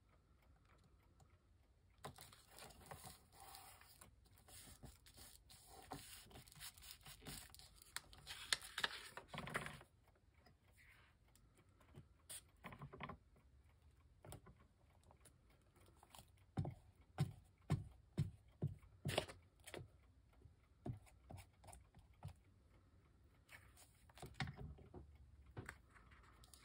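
Paper rustling and scraping as craft pieces are handled for gluing, for several seconds. Then comes a quick run of light taps, about three a second, with a few more scattered taps near the end.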